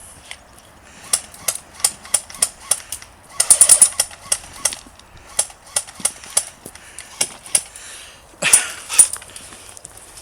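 Airsoft guns firing: sharp single shots at irregular intervals, with a short rapid burst about a third of the way in and a louder pair of shots near the end.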